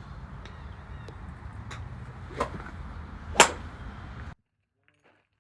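Golf clubs striking golf balls: sharp cracks, some nearer and some farther off, the loudest about three and a half seconds in, over a steady low rumble. Everything cuts off abruptly just after four seconds.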